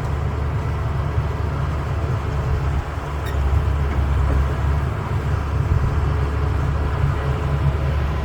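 CAT 320B excavator's diesel engine running steadily with a deep rumble.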